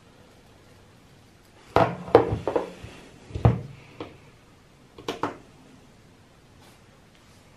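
Light knocks and clatter of a quadcopter and a small digital scale being handled and set down on a desk: a cluster of knocks about two seconds in, a sharper one about three and a half seconds in, then a few quieter clicks.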